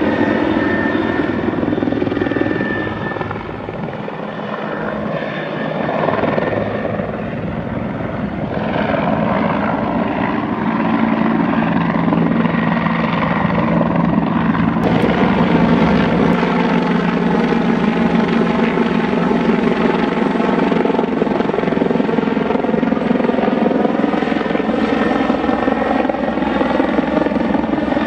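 Bell 412 twin-engine helicopter with a four-blade main rotor flying overhead: a steady, loud drone of rotor and turbine. The sound changes abruptly about halfway through.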